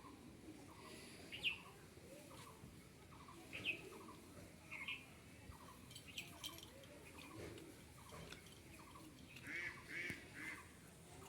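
Birds chirping: a short call repeats about twice a second, and louder, higher chirps come now and then, with a quick cluster near the end.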